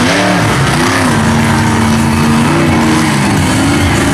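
A monster truck's engine running and revving, its pitch dipping and rising several times with a steady stretch in the middle.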